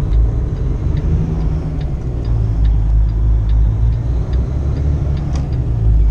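Inside the cab of a 2015 Kenworth T680 semi truck: a steady low engine and road rumble while the truck turns, with the turn signal ticking about twice a second.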